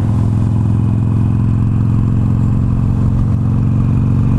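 Harley-Davidson Iron 883's air-cooled V-twin engine running steadily at cruising speed, its pitch holding even, with a rush of wind noise over it.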